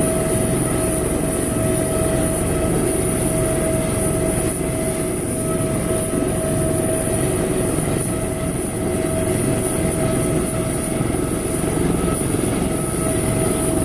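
Turbine medical helicopter running on the helipad with its rotors turning before takeoff: steady rotor and engine noise under a constant high turbine whine.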